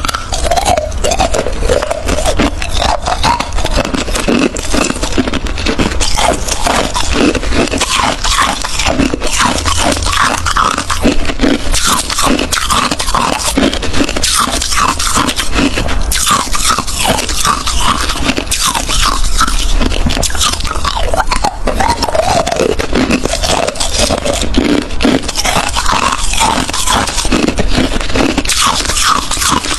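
Close-up crunching of hard crushed ice bitten and chewed in the mouth, a dense run of loud cracks and grinding with no pause.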